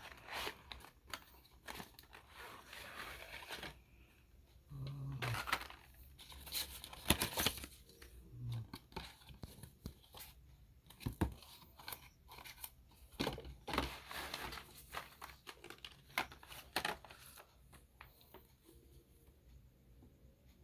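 Packaging being torn open and crinkled by hand: irregular tearing and rustling with sharp clicks, thinning out near the end.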